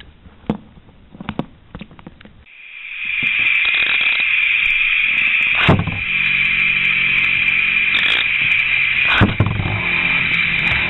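Scattered clicks, then two Beyblade spinning tops whirring and scraping loudly in a plastic stadium, a steady high grinding hiss. Two sharp knocks where the tops collide, about three and a half seconds apart.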